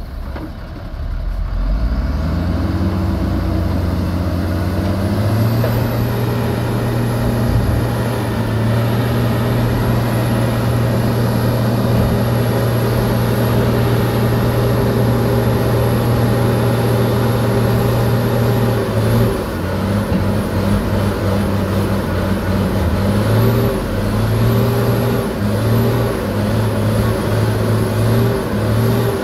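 Ten-wheel dump truck's diesel engine revving up a couple of seconds in and holding high revs while the tipper bed is raised, then revving up and down repeatedly in the last ten seconds as the load of dirt and rock slides off the bed.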